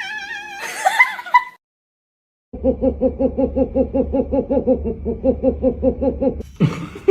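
A cat meows with a gliding, rising-and-falling call for about the first second and a half. After a brief cut, a rapid giggling laugh follows for about four seconds, pulsing about five times a second at a steady pitch.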